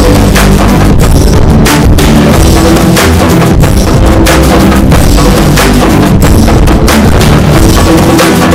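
Loud, continuous music driven by rapid, dense drumming, with steady held tones underneath.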